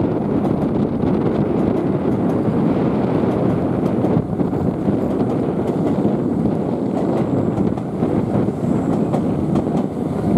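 Electric commuter train running slowly along the tracks, mixed with steady wind rumble on the microphone.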